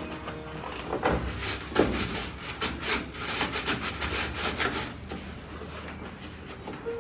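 Repeated rubbing strokes, about three a second, that die away after about five seconds, over faint background music.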